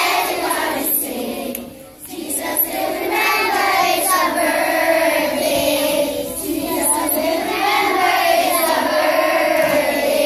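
Children's choir singing a Christmas carol, with a brief break between phrases about two seconds in.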